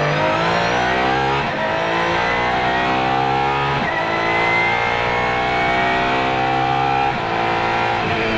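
Apollo IE's naturally aspirated 6.3-litre V12 at full throttle, its pitch climbing steadily in each gear and dropping at quick upshifts about a second and a half in, near four seconds and about seven seconds in, heard from inside the cockpit.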